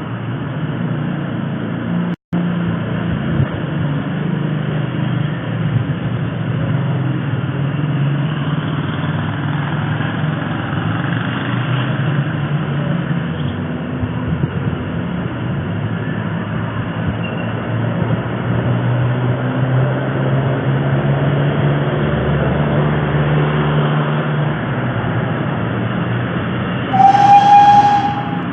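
An alert from seismograph monitoring software: a long, steady rumbling noise with a low drone, then a loud, short, high-pitched beep about a second before the end. The alert is set to sound when the station near Popocatépetl picks up strong activity.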